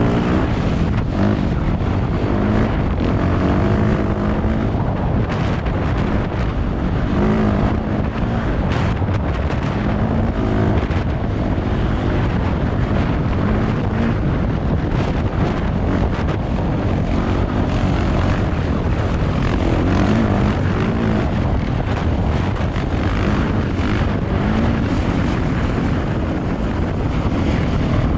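Dirt bike engine running hard, its pitch rising and falling again and again as it revs up and backs off through the ride.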